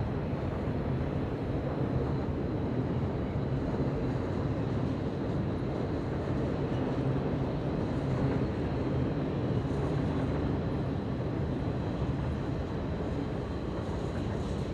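Steady low rumble of a Canadian Pacific intermodal freight train heard at a distance, holding an even level without clear wheel clatter.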